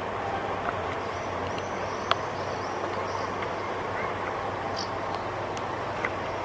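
Steady outdoor street ambience, a constant rumble of distant traffic, with a few short sharp clicks, the loudest about two seconds in, and faint high chirps.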